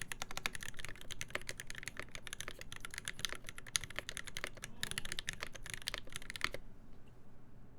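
Steady, fast typing on a KBD8X MKII mechanical keyboard with a full brass plate, lubed Alpaca linear switches and GMK keycaps. The keystrokes stop about a second before the end.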